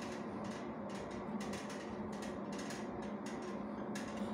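Steady low equipment hum in an MRI console room, with faint irregular clicks.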